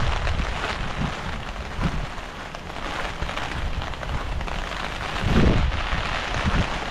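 Heavy rain falling steadily, a dense even hiss, with gusts of wind buffeting the microphone in low rumbles, the strongest about five seconds in.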